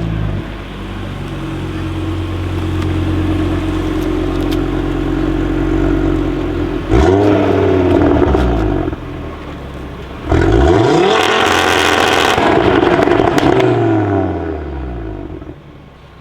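Modified Audi RS3's turbocharged five-cylinder with an aftermarket downpipe, holding steady revs and then accelerating hard in two loud surges, about seven and ten seconds in, with a drop in between. The sound fades near the end as the car pulls away.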